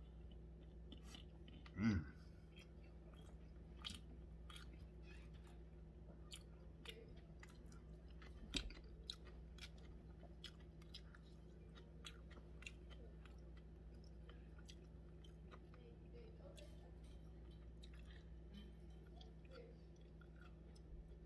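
A person chewing sushi close to the microphone: soft, wet mouth clicks and smacks throughout, with one short voiced 'mm'-like sound about two seconds in. A faint steady hum runs underneath.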